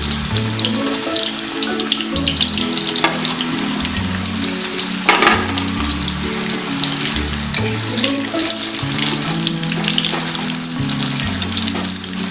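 Slices of raw green banana deep-frying in hot oil, sizzling and crackling steadily, with a few louder spatters, over soft background music.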